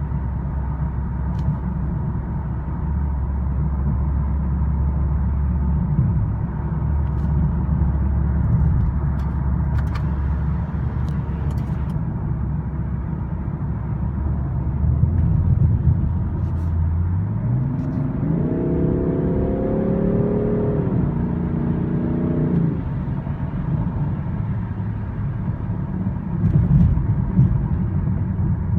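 BMW 340i xDrive's turbocharged straight-six heard from inside the cabin, its Active Sound Design coded to the M3/M4 profile. The engine drones steadily at low revs, then about two-thirds in the pitch climbs sharply under acceleration and falls back in two steps as it upshifts.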